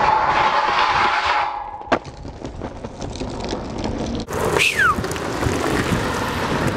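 Skateboard trucks grinding down a metal handrail, a loud scrape with a steady ringing tone, ended about two seconds in by one sharp clack as the board lands. The wheels then roll on the paved path, with a short high sound falling in pitch about halfway.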